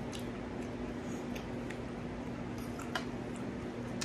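Eating spaghetti: soft wet chewing and a handful of light clicks of a fork or spoon against the bowl, over a steady low hum.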